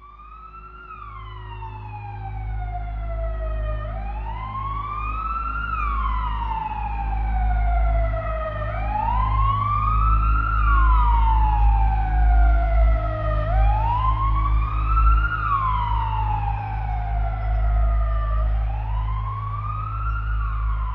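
A siren wailing, about five cycles, each rising quickly and then falling slowly, over a deep steady low rumble. It fades in at the start.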